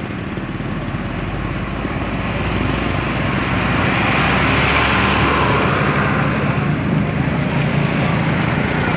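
A road vehicle driving past, its engine and road noise growing louder to a peak about halfway through and then easing off.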